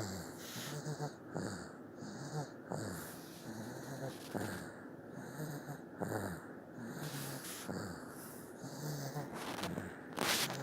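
Baby snoring in sleep: a snore on each breath, repeating roughly every one to two seconds, with one louder breath near the end.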